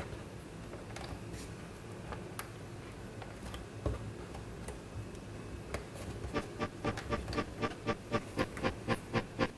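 Faint scattered clicks and taps as the metal retaining tabs on the back of a picture frame are pressed down against the hardboard backing. About six seconds in, music fades in: a steady pulse of short repeated notes, about four a second, growing louder.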